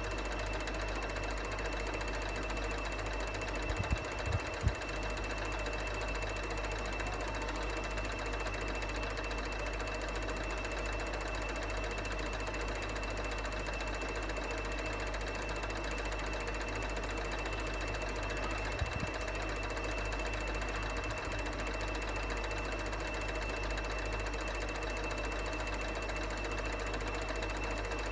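ELMO F-120 film projector running: a steady, fast mechanical clatter from its film-advance mechanism with a steady high tone over it. A few brief louder knocks come about four seconds in, and one more near the end of the second third.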